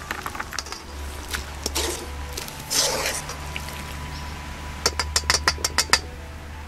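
Open wood fire crackling under a pan of simmering leek broth, with a quick run of sharp cracks about five seconds in.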